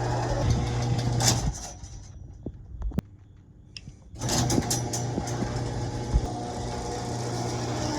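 Overhead Door Odyssey Legacy garage door opener motor running with a steady hum, cutting off about a second and a half in, then a couple of clicks, and starting up again about four seconds in.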